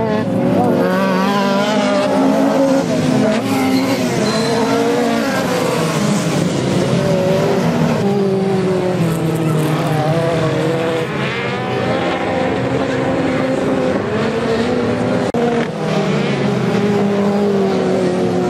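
Several Volkswagen Beetle autocross cars racing together, their engines overlapping and rising and falling in pitch as they accelerate and lift off.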